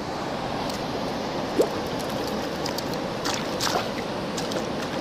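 Steady rush of flowing creek water, with a few faint clicks.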